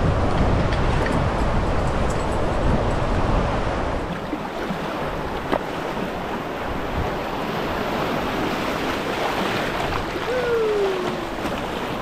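Steady rush of fast river water, with wind buffeting the microphone, the low rumble heaviest in the first few seconds.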